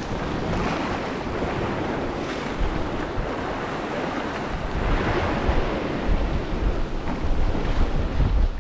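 Sea surf washing and foaming against rocks, with wind buffeting the microphone in gusts, heaviest near the end.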